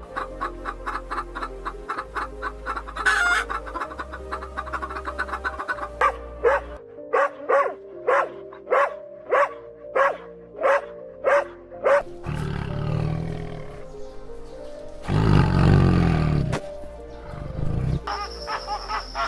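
A series of different animal calls over background music: a quick run of short calls, then about eight strong calls evenly spaced, then rough low-pitched calls, the loudest a long one about fifteen seconds in.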